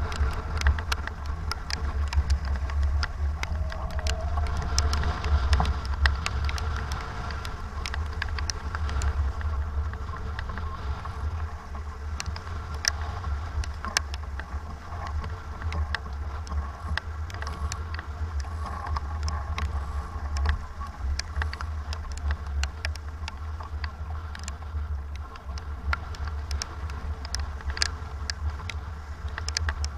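Strong wind and rain aboard a sailboat under way in about 25 knots of wind: a steady low rumble of wind on the microphone, with many sharp ticks of rain and spray striking throughout.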